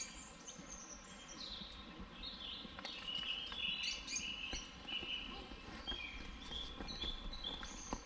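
Small birds chirping and singing: many short, high chirps and quick falling whistles, several birds calling over one another.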